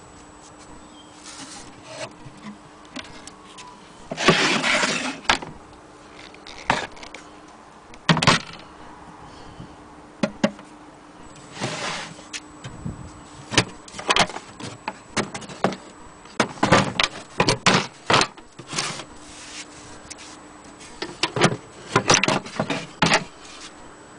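An old wooden sewing-machine case being handled: irregular knocks, taps and scrapes of wood, with a longer rubbing sound about four seconds in and quick clusters of clicks and knocks in the second half.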